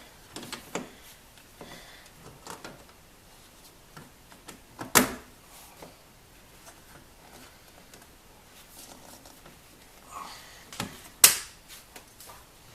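Plastic clicks and knocks of a 2003 Subaru Forester's cabin air filter cover being worked into its housing behind the glove box. There are scattered light taps and two loud sharp snaps, one near the middle and one near the end.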